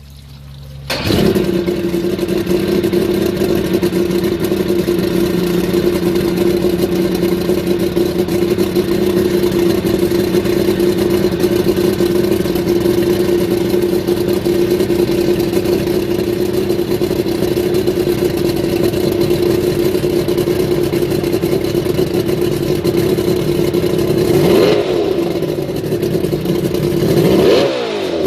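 Mercury 140 hp inline-six two-stroke outboard engine running steadily. It comes in suddenly about a second in. Near the end it is revved briefly twice, rising and falling in pitch each time.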